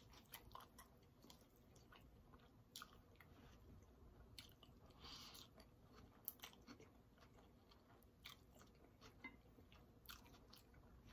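Faint, close-up chewing and mouth clicks of a person eating spicy noodles, with a short slurp of noodles about five seconds in.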